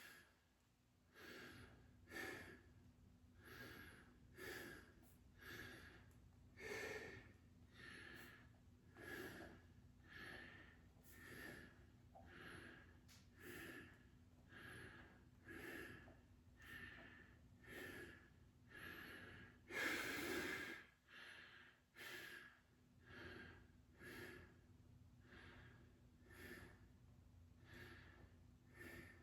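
A man breathing hard through a set of tricep extensions, short forceful breaths about one a second, with a longer, louder exhale about twenty seconds in: heavy breathing from exertion.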